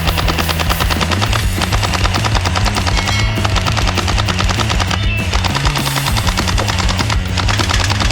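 Toy AK-47 blaster's electronic machine-gun sound effect firing in a rapid, continuous burst, over background music.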